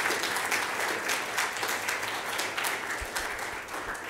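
Audience applauding steadily, the clapping thinning out near the end.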